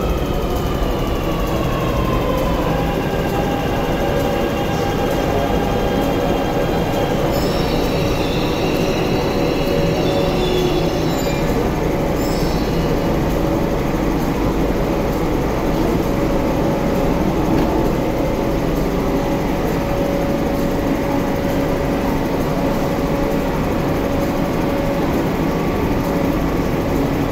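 MTR South Island Line S-train arriving and braking to a stop. Its Alstom Optonix traction inverter whines in several tones that fall in pitch over the first few seconds. A high squeal follows for several seconds about a third of the way in, then a steady hum as the train stands, all echoing in the station.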